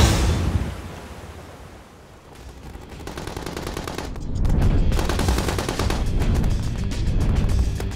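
Music fades out, then rapid machine-gun-like gunfire sound effects come up with music from about two seconds in, growing loud about halfway through.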